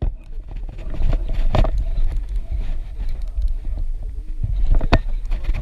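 A steady low rumble with two sharp knocks, one early and one near the end.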